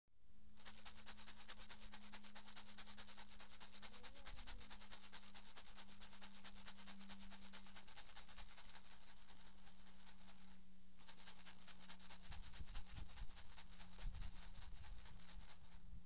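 A hand-held gourd-shaped rattle shaken fast and evenly, about nine or ten strokes a second, breaking off briefly about two-thirds of the way through and then starting again. A faint steady low tone runs underneath.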